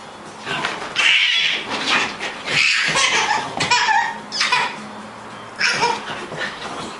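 A dog's excited, high-pitched yelps and barks during play, five or six short bursts in a row, with some baby laughter among them.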